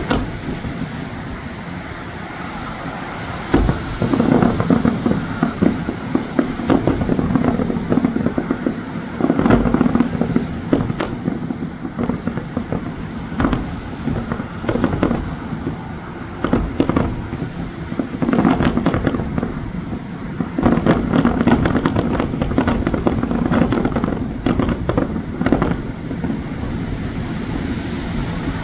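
Fireworks display: after a few seconds of steady background noise, clusters of sharp bangs and bursts follow one another through the rest of the stretch.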